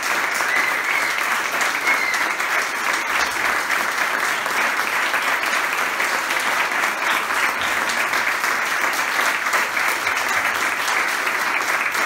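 Audience applauding steadily, the clapping of many hands going on without a break.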